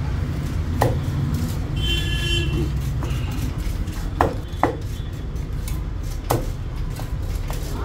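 Cleaver chopping through fish on a wooden log block: a handful of sharp chops, the loudest about a second in and around four and six seconds, over a steady low background rumble. A short high tone sounds about two seconds in.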